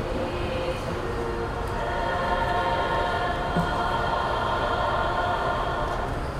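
A high school choir sings held notes. About two seconds in the voices move up into a fuller, brighter chord and hold it, easing off near the end, with a steady low rumble underneath.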